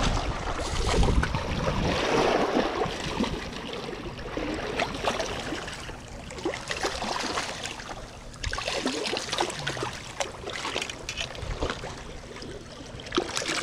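Water splashing and lapping against shoreline rocks while a hooked snook is landed, with scattered knocks and scrapes.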